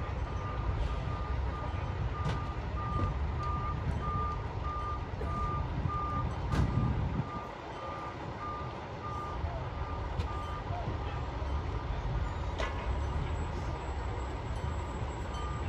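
A back-up alarm on one of the fire trucks beeps about twice a second over the low rumble of idling diesel engines. It stops a little under halfway through and starts again near the end. Just before the beeping stops, a louder low engine surge comes through.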